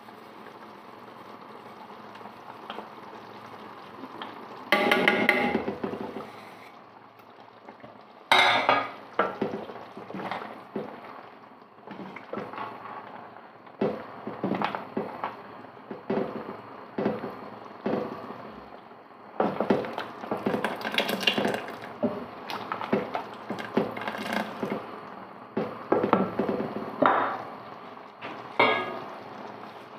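Metal spoon clinking and scraping against a large aluminium stockpot as masala is added and worked into simmering curry, in irregular bursts of clatter.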